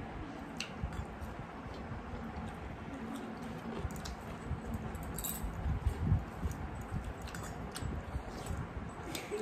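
People eating rice and dal with their hands: chewing and wet mouth sounds, the squish of rice being mixed by fingers, and scattered small clicks.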